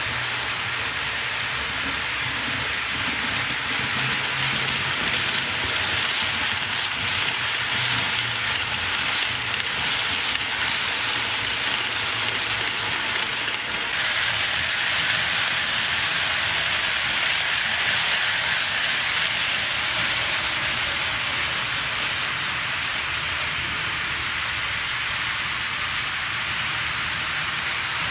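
HO scale model trains running on sectional track: a steady rushing rattle of metal wheels rolling over the rails, with a low motor hum in the first several seconds.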